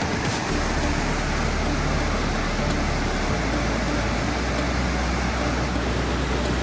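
Steady rushing of water, an even roar with a low rumble underneath.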